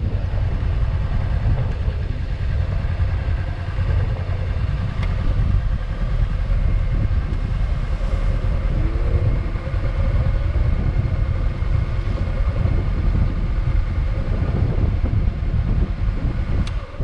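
Motorcycle on the move: a steady low rumble of engine and rushing air.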